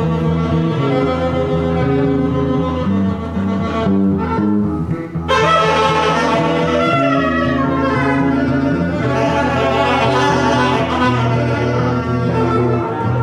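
Bowed double bass playing slow held low notes, joined about five seconds in by a saxophone playing a wavering melodic line in a free jazz style.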